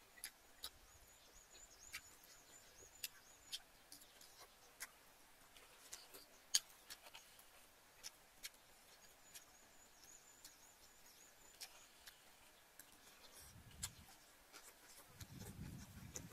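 Quiet eating sounds: scattered small clicks of a metal spoon against a ceramic soup bowl, with a soft low mouth noise of sipping and chewing in the last few seconds. A faint high wavering whistle comes twice.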